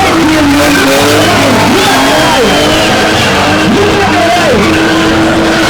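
BMW E36 drift car's engine revving, its pitch rising and falling and at times held high, mixed with background music.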